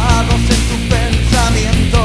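Loud rock music in a stretch without singing: steady drum strokes under a melody line that bends up and down in pitch.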